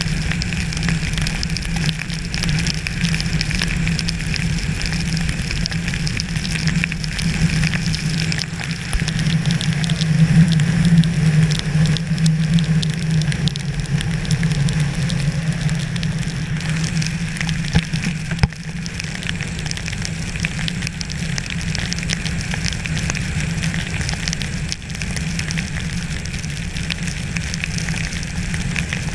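Steady crackling patter of precipitation, rain or sleet, hitting surfaces, with a steady low hum underneath.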